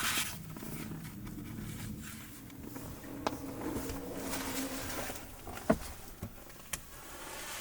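Low rustling and shuffling noise with a few sharp knocks or clicks, the loudest about two-thirds of the way through.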